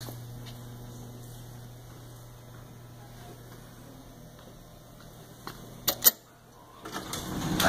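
A steady low electrical hum, then two sharp clicks about six seconds in as the elevator's UP call button is pressed, after which the hum stops. Near the end, a rising rush of noise.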